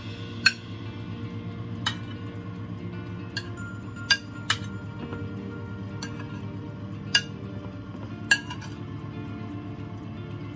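A metal spoon clinking against a ceramic plate about seven times, in sharp separate knocks, as food is scooped out of it. Background music plays steadily underneath.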